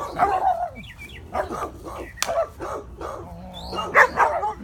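A dog barking and yipping in a string of short, excited barks, loudest about four seconds in, while it is played with. A single sharp click about two seconds in.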